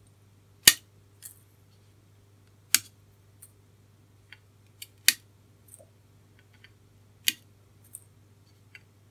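Wire cutters snipping the leads of through-hole resistors on a circuit board: four sharp snips about two seconds apart, with fainter clicks between them.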